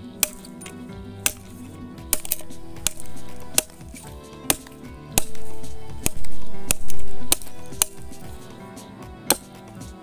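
Large knife chopping into a green bamboo tube: a dozen or so sharp, irregular cracks roughly a second apart, over steady background music.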